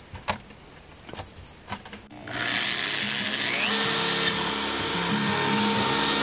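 Corded electric drill starting about two seconds in and running steadily as it bores through the side of a plastic 5-gallon bucket, after a few light handling knocks. Background music comes in partway through.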